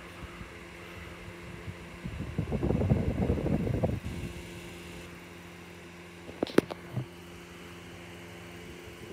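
Sound of a VHS tape playing through a TV speaker over a steady low hum. About two seconds in there is a louder stretch of programme sound lasting a couple of seconds, and a sharp click comes about six and a half seconds in.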